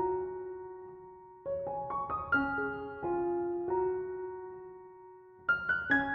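Background piano music: a soft melody in short phrases of single notes, each fading away, with new phrases beginning about a second and a half in and again near the end.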